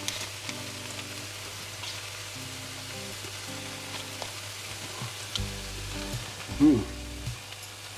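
Chicken in a peanut sauce sizzling in a frying pan: a steady sizzle with small pops. A brief louder sound comes about six and a half seconds in.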